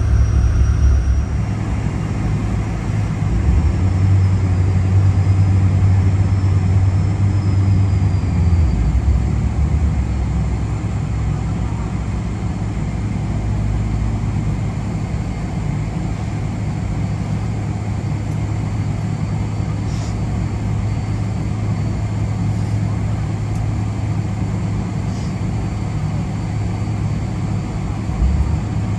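Steady low rumble of a Boeing 777 airliner heard from inside the cabin, a little louder for the first several seconds before settling.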